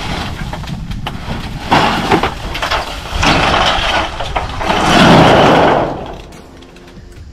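Old corrugated iron roofing sheets being dragged, lifted and flipped over, clattering and scraping in a few noisy bursts, the longest and loudest about five seconds in.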